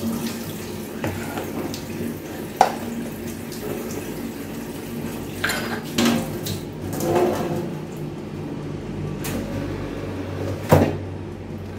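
Kitchen tap running into a stainless steel sink, with the rush of water easing off partway through as it is turned off. Scattered knocks and clatters of kitchenware, and a sharp clack near the end as the air fryer's basket drawer is pulled out.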